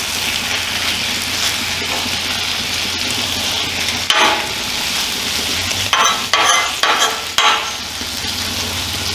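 Sliced red peppers and onions sizzling on a hot flat-top griddle. Metal spatulas scrape and flip them against the griddle surface a few times, mostly in the second half.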